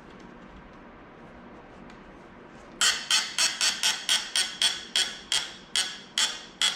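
A run of about fifteen sharp clicks or taps, each with a brief ring. They begin about three seconds in at roughly four a second and slow toward the end.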